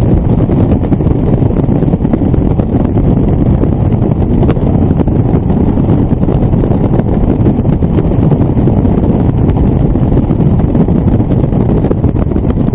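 Wind buffeting the microphone of a camera mounted outside a moving 4x4, a steady loud rumble with the vehicle's engine and tyre noise underneath.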